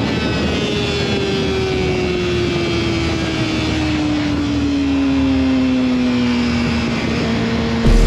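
Yamaha R6 motorcycle's inline-four engine with a Yoshimura exhaust, its revs falling slowly and steadily, then picking up slightly near the end. A louder low rumble comes in just before the end.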